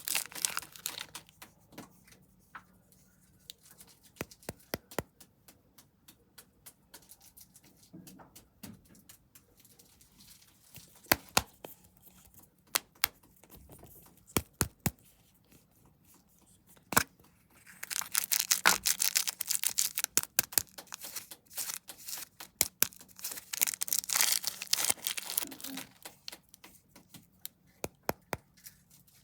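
Snack wrappers being unwrapped: packaging crinkling and tearing, with many scattered sharp crackles and clicks. Longer, louder bouts of crinkling come at the very start and twice in the second half.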